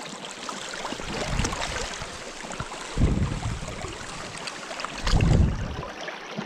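Creek water running steadily, with three brief low rumbles spread through it.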